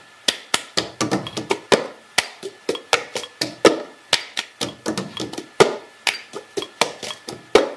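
Percussive intro sting: a quick, uneven run of sharp taps and knocks, about three or four a second, some with a short ringing pitch, cutting off abruptly at the end.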